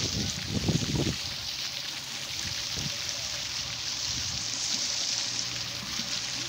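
Fountain water splashing steadily.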